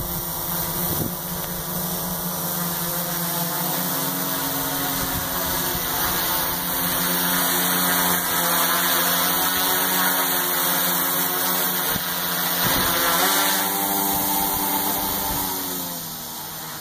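Quadcopter's electric motors and propellers buzzing steadily as it hovers and flies overhead. The pitch shifts about three-quarters of the way through, and the sound fades a little near the end as it climbs away.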